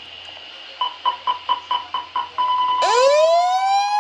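Electronic alarm: a run of about seven short beeps at one pitch, a held steady tone, then a loud siren wail that starts about three seconds in and rises steeply in pitch.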